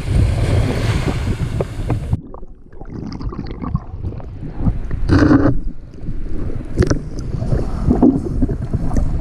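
Wind on the microphone over shallow surf washing in. About two seconds in, the sound suddenly goes muffled as the microphone goes under the water. From then on come gurgling, sloshing and scattered knocks, with one louder burst near the middle.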